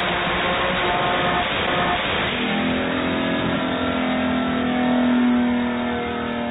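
Turbocharged race car engine running loud at high revs. About two seconds in, its note settles into one strong held pitch that swells and then eases off slightly.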